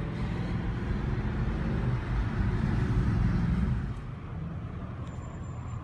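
Inside the cabin of a Mercedes C63 AMG V8 driving at highway speed: a steady low rumble of engine and road noise, dropping in level about four seconds in.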